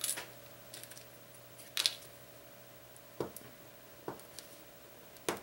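Fingers and fingernails picking at the tape on a Nexus 4 phone's battery: a short scrape near two seconds in, then small sharp clicks of nail on battery and plastic about a second apart.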